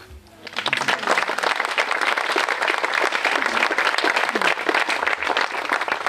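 Audience applauding: a dense patter of many hands clapping that starts about half a second in and holds steady.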